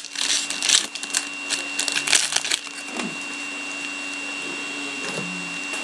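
Trading cards and their packaging being handled: brief scratchy rustling and sliding in the first couple of seconds, then only a steady background hum with a faint high whine.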